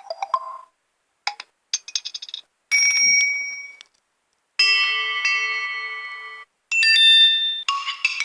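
A run of short phone notification tones played one after another with brief gaps: a few quick tapping clicks, a burst of rapid ticks, a bright bell-like ding that fades, a held chime with a low pulsing note underneath, and another bright chime near the end.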